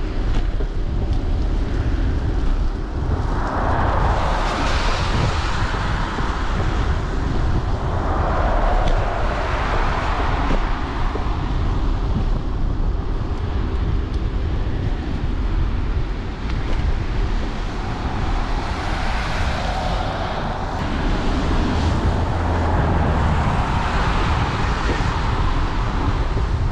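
Wind rumbling on a bike-mounted GoPro's microphone, with the hiss of traffic passing on a wet road swelling and fading about four times.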